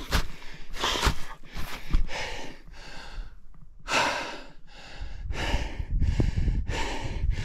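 A person panting hard, quick rhythmic breaths a little under two a second, out of breath from wading through deep snow without snowshoes. A low rumble joins about five seconds in.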